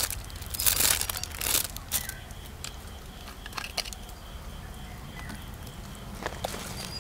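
Crinkling and rustling of plastic handled by hand for the first couple of seconds, then a few small sharp clicks as the plastic spray nozzle and dip tube of a spray bottle are handled.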